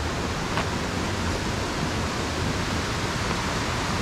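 Steady rush of a rocky mountain river flowing beside the trail.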